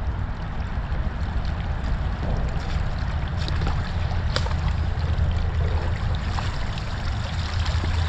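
Shallow creek water running and gurgling through a broken-open debris dam, with rubber boots sloshing and splashing as someone wades through it, and a sharper splash about four and a half seconds in.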